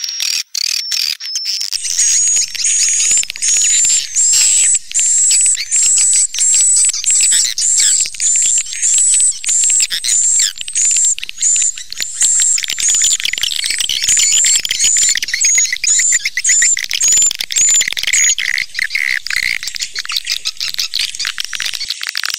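Swiftlet call lure track: dense, high-pitched swiftlet twittering over a rapid clicking chatter. A sharp high chirp repeats about twice a second and stops about three-quarters of the way through, leaving the twittering.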